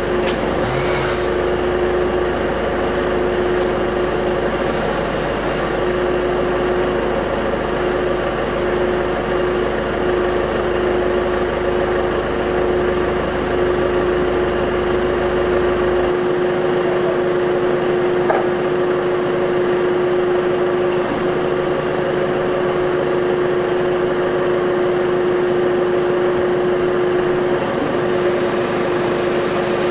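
A machine engine running steadily at a constant speed, with an unchanging whine.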